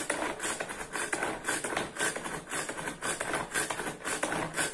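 Pull-cord manual food chopper mincing meat: its blades spin and click with each quick pull of the cord, in a steady rhythm of about three strokes a second.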